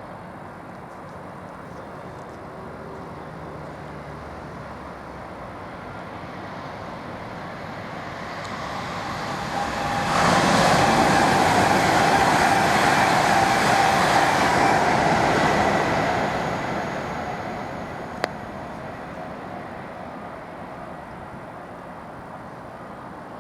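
Diesel locomotives passing: the noise builds, rises sharply as they come level, stays loud for about six seconds with a steady whine in it, then fades away.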